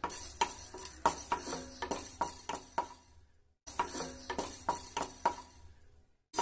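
Wooden spatula stirring dry urad dal in a nonstick pan: quick irregular scrapes and knocks of wood on the pan, with the grains rattling. It breaks off for a moment about halfway through, then resumes.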